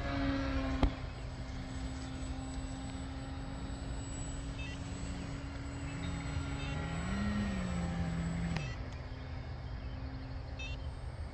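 Electric motors and propellers of radio-controlled model airplanes droning overhead. One holds a steady hum, and a second rises and falls in pitch with the throttle before dropping away after about eight and a half seconds.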